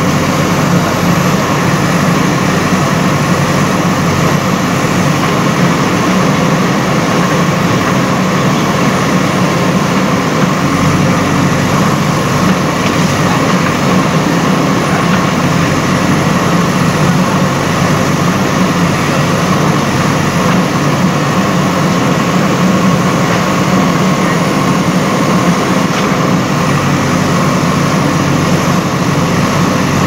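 JCB backhoe loader's diesel engine running steadily while its backhoe arm digs, with no change in pitch or level.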